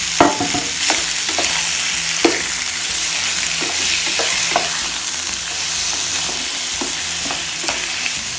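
Chunks of raw beef sizzling in hot oil in a steel pan as they sear, stirred with a wooden spoon that knocks against the pan now and then. The loudest knock comes just after the start.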